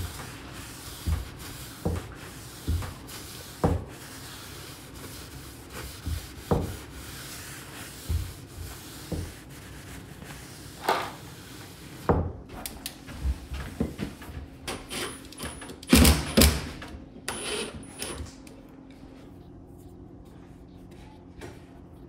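Paper towel wiping stain back off a wooden shelf board in repeated rubbing strokes, with a soft bump about once a second. About halfway through this gives way to a series of sharp clicks and knocks, the loudest two-thirds of the way in.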